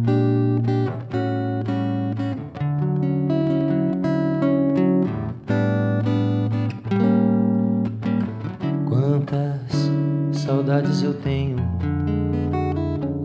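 Caimbé electroacoustic guitar played solo: plucked notes and chords ringing over held bass notes as the instrumental introduction to a song.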